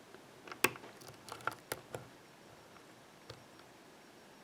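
Faint metallic clicks from a hook pick and tension wrench working the pins of a Master Lock ProSeries 6121 padlock while searching for a spool pin: a quick cluster of clicks in the first two seconds, then one more click about three seconds in.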